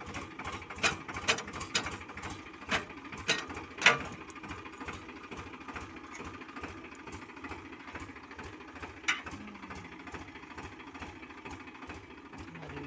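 Tractor diesel engine idling with a rapid, steady chug, with sharp clanks from the steel implement frame being handled at the three-point hitch: several in the first four seconds and one more about nine seconds in.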